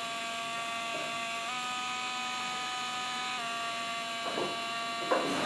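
A 3D pen's small filament-feed motor runs with a steady whine. The whine steps up in pitch about a second and a half in, then drops back down a little past halfway. A couple of light knocks come near the end.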